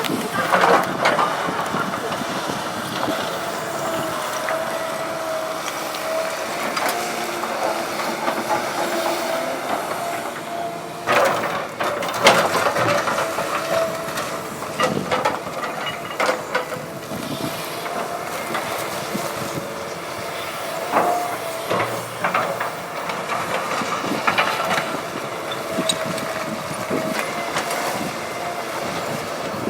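Cat 319D excavator working: its engine and hydraulics running with a steady whine, broken by several loud clanks and knocks from the machine, the loudest about a third of the way in.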